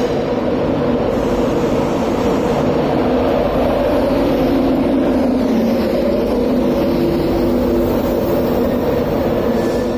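LNER Class 91 electric locomotive and its Mark 4 coaches running in along the platform past the listener. A loud, steady hum mixes with wheel-on-rail noise.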